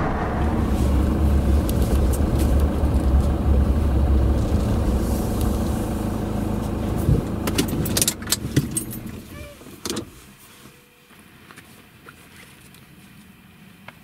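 Pickup truck driving, heard from inside the cab: a steady low rumble. About eight seconds in come several sharp clicks and knocks as it pulls up, and about ten seconds in the rumble stops, leaving it quiet with one more click near the end.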